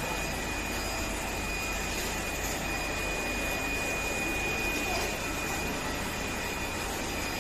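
Steady mechanical hum with a constant thin high whine over it, even throughout with no distinct knocks or clicks.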